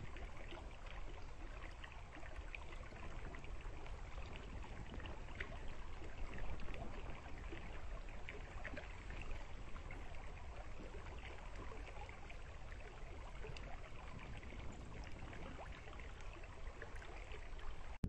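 Small mountain stream babbling steadily over stones, with a low rumble underneath.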